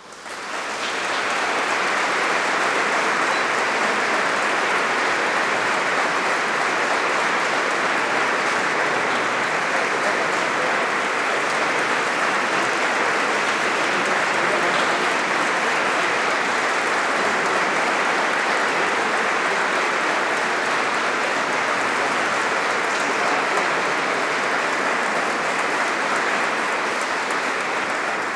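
Audience applauding: dense, steady clapping that swells up within the first second, holds even, and starts to fade near the end.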